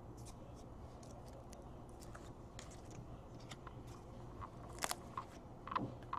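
Baseball trading cards and packs being handled on a table: light, scattered clicks and crinkly snaps as cards are flicked and slid past each other, with a sharper snap about five seconds in, over a low steady hum.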